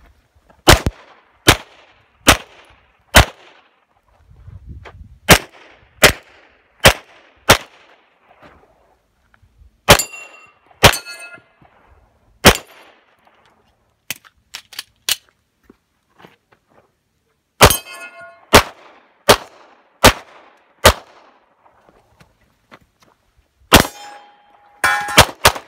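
Pistol fire during a competition stage: strings of four or five shots a little under a second apart, with pauses between strings. Several hits make steel plate targets ring with a metallic clang.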